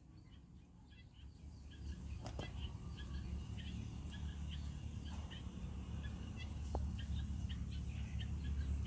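Small birds chirping in short, repeated calls over a steady low rumble, with a single sharp click a little over two seconds in.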